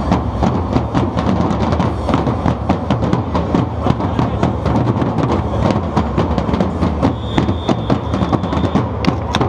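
Percussion band drumming: dense, fast drum strokes over a heavy low beat. A steady high tone sounds for about a second and a half near the end.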